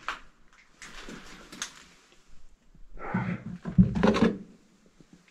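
Stored items being rummaged through and a storage box handled: rustling and scraping, then a cluster of knocks and clatter about three to four seconds in, the loudest knock near four seconds.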